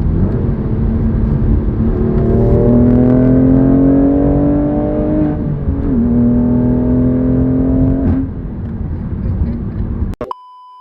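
BMW M2 Competition's S55 twin-turbo straight-six accelerating hard, its pitch climbing steadily, dropping at a gear change about five and a half seconds in, then climbing again until it lets off about eight seconds in. A short steady electronic beep sounds near the end.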